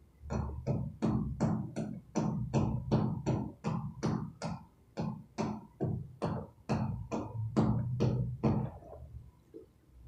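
Hammer striking a chisel against rough concrete, chipping at the surface in a steady run of blows about three a second, each ringing briefly; the blows stop near the end.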